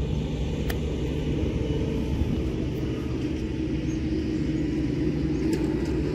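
Wind buffeting the microphone: a steady, fluctuating low rumble, with a couple of faint ticks.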